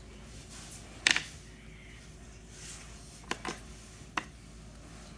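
Felt-tip markers being handled on a desk, clicking and tapping: one sharp click about a second in, then three lighter taps a little after three and four seconds.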